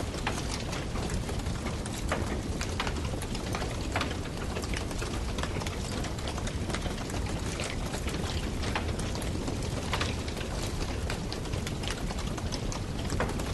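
Wood fire crackling: a steady hiss and rumble with frequent irregular sharp pops and snaps.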